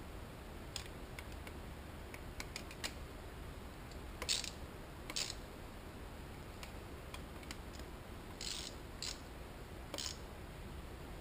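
Hand ratchet clicking in a few short bursts as it is swung back and forth on the bolts of a motorcycle cylinder head, between scattered light clicks of metal tools.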